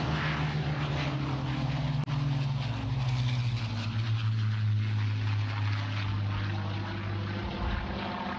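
Hawker Hurricane's Rolls-Royce Merlin V12 engine and propeller running steadily in flight. The engine note drops over the first few seconds, then holds steady.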